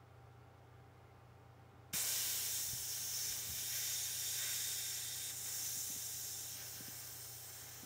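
Butane gas hissing out of an Eagle torch lighter's fill valve, held open with a paper clip to purge the tank. The hiss starts suddenly about two seconds in and slowly fades as the remaining gas empties out.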